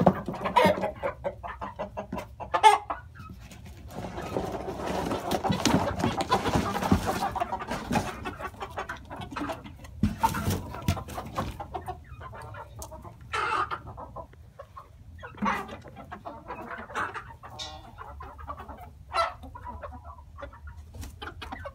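Chickens clucking, with scattered short calls throughout. About four seconds in there is a few seconds of rustling.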